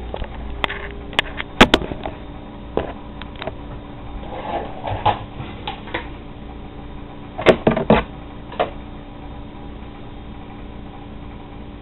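Irregular knocks and clatter of kitchen items being handled on a counter while an onion is prepared for cutting. There are a dozen or so sharp strikes, the loudest about two seconds in and a cluster near eight seconds, over a steady low hum.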